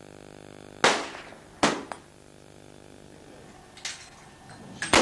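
M1 Garand .30-calibre semi-automatic rifle firing: three loud shots, two about a second in less than a second apart and one near the end, each with a short fading tail, plus a fainter crack shortly before the last shot.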